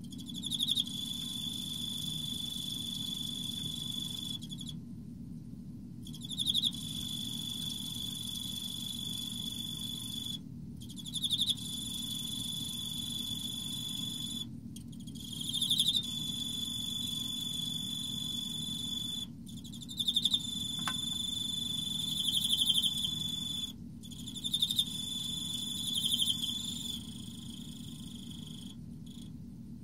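Emma field cricket (Teleogryllus emma) stridulating: a steady high-pitched trill held for four to five seconds at a time, each phrase opening with a few louder chirps and broken by short pauses.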